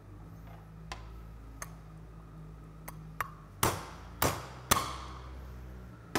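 A few light ticks, then three loud metallic knocks with a short ring, about half a second apart, and one more near the end: the heated aluminium crankcase half of a Honda PA50 moped engine being knocked to free its crankshaft bearing. A steady low hum runs underneath.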